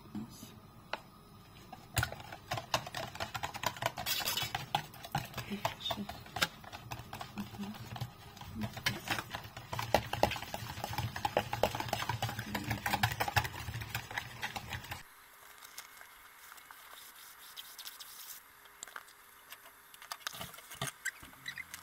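Wire balloon whisk beating eggs and sour cream by hand in a plastic bowl: fast, busy ticking and scraping of the wires against the bowl for about thirteen seconds. Then it stops abruptly and a much quieter stretch follows, with a few soft taps as flour is sifted.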